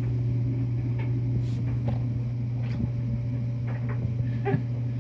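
Steady low machine hum, with a few faint light taps scattered through it.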